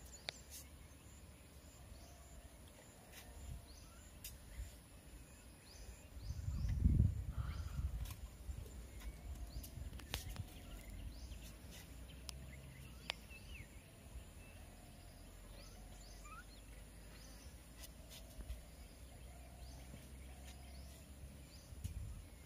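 Outdoor ambience: a steady low rumble with scattered faint chirps and clicks. A louder low rumble swells and fades about seven seconds in.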